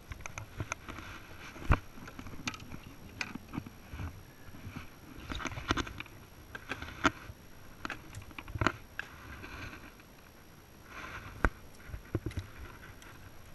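Handling noise in a small fishing boat with a caught largemouth bass: irregular clicks, knocks and short bursts of rustling, with a few sharp knocks standing out, the loudest about two seconds in and again near the end.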